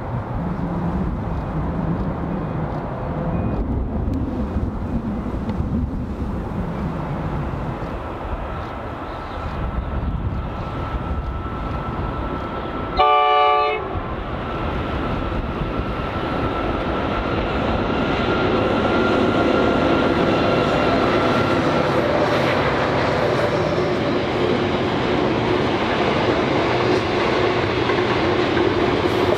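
NR-class diesel locomotive running with its train, with one short horn blast about halfway through. The engine and rail noise grow louder over the second half as the train draws nearer.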